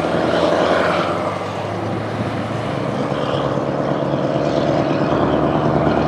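Heavy truck diesel engines running as trucks pull away, a steady drone that dips slightly about one and a half seconds in and then builds again.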